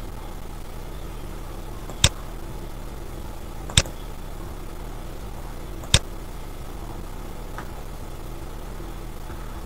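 Three sharp computer-mouse clicks about two seconds apart, over a steady hiss with a low hum. A fainter click follows near the end.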